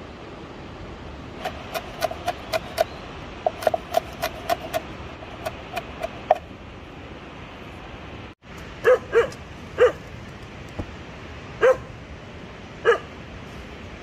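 A kitchen knife chopping green chillies on a wooden cutting board: a quick run of sharp taps in short bursts. Later a dog barks five times in short single barks, louder than the chopping.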